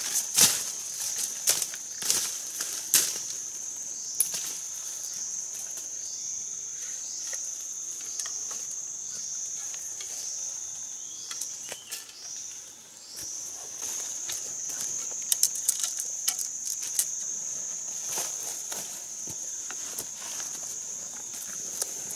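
A steady high-pitched drone of forest insects, rising and falling in a repeating pulse, with a brief dip a little past halfway. Over it, dry leaves and twigs crackle and rustle in sharp bursts as someone moves and works in the leaf litter, loudest near the start and again about two-thirds of the way through.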